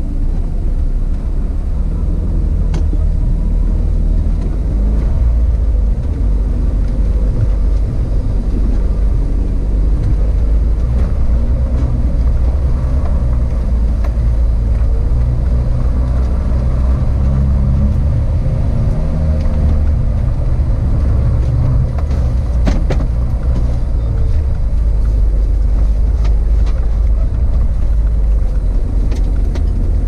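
Suzuki Jimny driving, with a steady low rumble of engine and road noise. A couple of sharp knocks come about three quarters of the way through.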